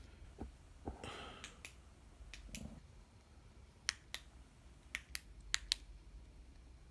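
Flashlight push-button switch being clicked: a few sharp clicks with a short handling rustle in the first seconds, then three quick pairs of crisp clicks.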